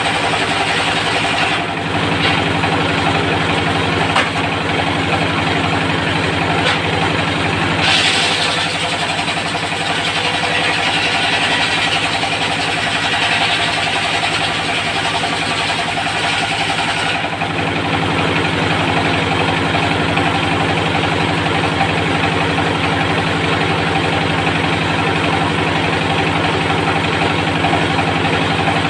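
Diesel engine running steadily, driving a circular sawmill blade. From about eight to seventeen seconds in, a brighter, noisier sound joins it as the blade cuts through teak.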